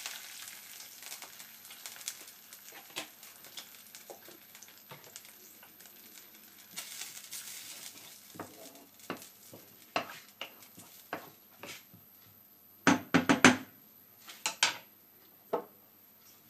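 Milk poured into a hot frying pan over a reduced wine, bacon and shallot base, with a faint fading sizzle, then a wooden spoon stirring and scraping the sauce in the pan with small scattered clicks. About three-quarters of the way in comes a quick cluster of loud knocks, the loudest sound, followed by a few single knocks.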